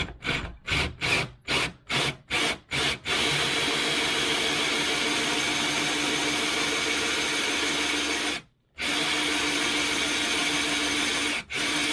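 Power drill driving a hole saw into a solid pine door for a doorknob hole. It starts with a quick series of short trigger bursts, then runs steadily with a motor whine as the saw cuts, stopping briefly twice.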